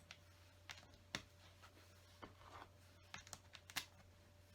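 Faint, scattered clicks and taps of plastic LEGO bricks being handled and pressed into place, about six short clicks over a low steady room hum.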